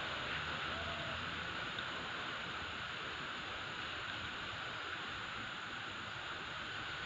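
Steady hiss of background noise with no distinct event, and a faint low hum in the first second.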